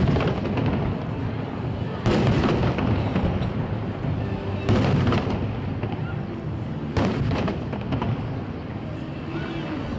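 Aerial fireworks shells bursting overhead: a series of loud bangs, the biggest coming every two to three seconds, over a continuous rumbling background.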